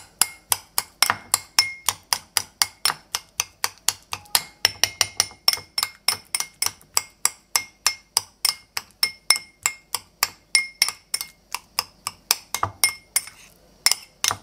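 Metal spoon clinking rapidly against a white ceramic bowl while mashing banana, about five sharp strikes a second, with a brief pause near the end.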